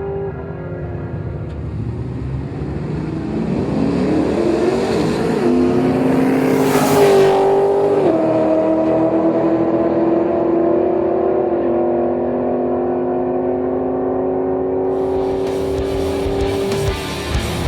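Holden VZ Commodore's 6-litre GM L76 V8 with twin 3-inch exhaust, running hard under acceleration: its pitch climbs over the first several seconds, a loud rush comes about seven seconds in, then the note holds steady and drops in two steps. Music comes in near the end.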